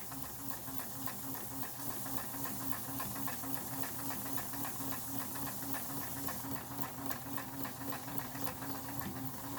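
Kenmore 158.17651 sewing machine running slowly and steadily, stitching a buttonhole while a buttonholer attachment moves the fabric, with a regular rhythmic pulse from the needle mechanism.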